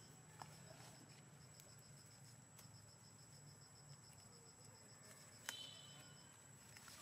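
Near silence, with a faint, steady high-pitched pulsing in the background. A small click comes just under half a second in and a sharper click about five and a half seconds in.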